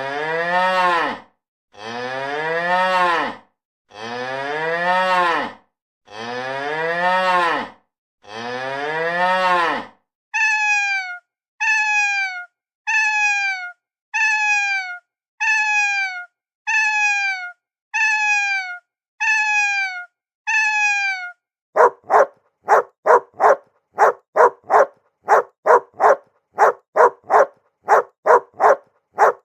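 A cow mooing five times in long, drawn-out moos, then a cat meowing about ten times in short, falling meows. From about two-thirds of the way in, a fast run of short, evenly spaced animal calls, about two a second.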